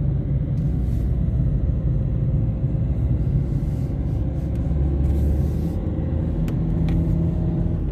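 Car interior road noise while driving: a steady low rumble of engine and tyres, with a faint engine hum and a couple of light clicks near the end.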